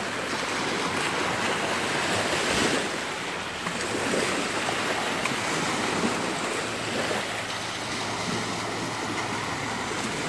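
Low surf: small, closely spaced waves washing up over the sand at the shoreline, a steady hiss that swells and eases gently.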